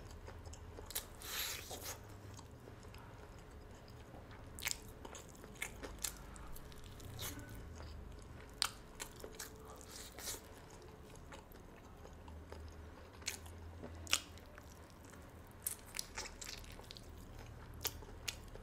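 Close-up eating sounds of fried chicken: biting and chewing, with scattered short, sharp crunches.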